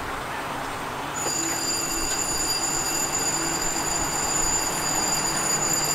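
Freight locomotives standing at rest, giving a steady mechanical noise. About a second in, a high, steady whine joins it and holds.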